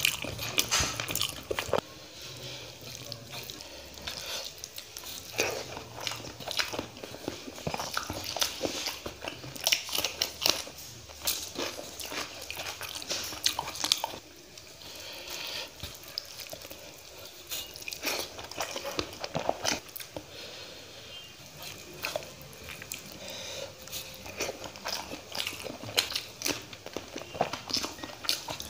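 Close-up eating sounds: a man chewing mouthfuls of rice and fish curry, with many short wet mouth clicks and smacks, and his fingers mixing rice on a metal plate.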